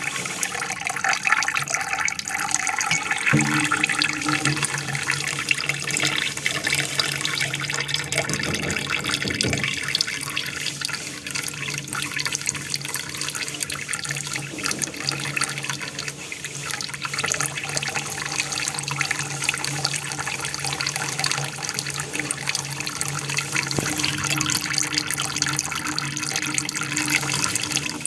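Water from a waterfall aquarium falling and splashing steadily, with a steady low hum underneath.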